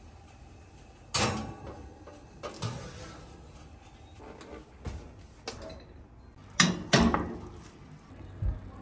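Kitchen clatter: a series of about seven sharp knocks and clacks spread over several seconds, the loudest one about a second in and a close pair of loud ones past the middle.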